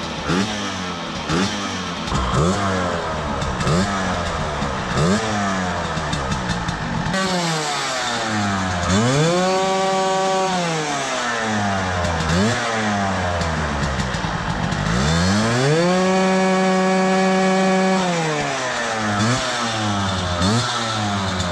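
Zanella 50 moped's small two-stroke engine being revved with repeated short throttle blips, its pitch rising and dropping back each time. Twice, about nine seconds in and again around sixteen seconds, the revs are held high for a couple of seconds before falling. It is running on a freshly fitted short spark plug, replacing one that had shorted.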